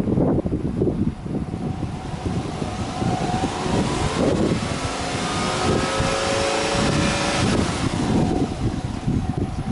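Subaru Impreza 15S's 1.5-litre flat-four exhaust at the tailpipe, running at idle, then revved with no load: engine speed climbs from about three seconds in, is held, and drops back to idle a little after seven seconds. Wind buffets the microphone throughout.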